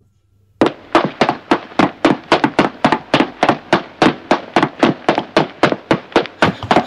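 A quick, slightly uneven series of sharp taps, about four a second, starting about half a second in.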